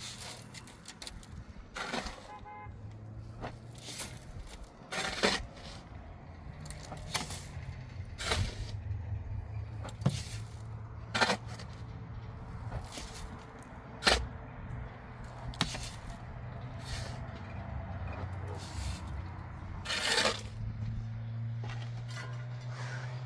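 Irregular scrapes and sharp knocks from masonry work with cement and blocks, one every second or few, over a steady low hum.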